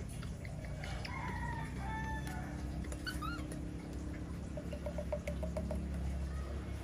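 Short squeaky animal calls, one about a second in and a rising one about three seconds in, then a quick run of short notes at about five a second starting a little past the middle, over a steady low hum.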